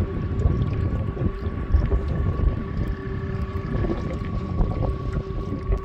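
Wind buffeting the microphone in a steady low rumble over the even whine of a canoe's electric outboard motor under way.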